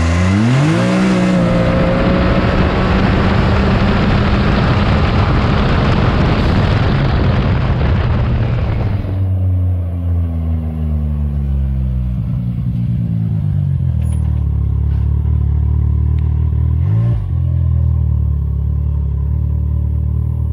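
Can-Am Maverick X3's turbocharged three-cylinder engine launching at full throttle through an Evolution Powersports full exhaust. The note climbs sharply in the first second, then holds steady and loud for about eight seconds. It then falls away as the machine slows and settles to a low idle.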